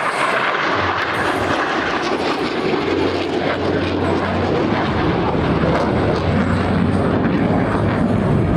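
Airplane engine noise from a flying display aircraft: a steady, loud rush, with a low hum that comes in about three seconds in.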